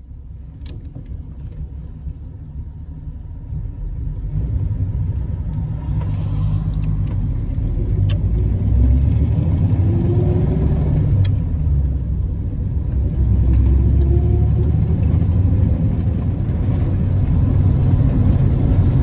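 Vintage 1938 Plymouth's flathead six-cylinder engine and road noise heard from inside the cabin as the car pulls away and picks up speed. The rumble grows louder over the first several seconds, and the engine note rises a couple of times along the way, with a few light clicks.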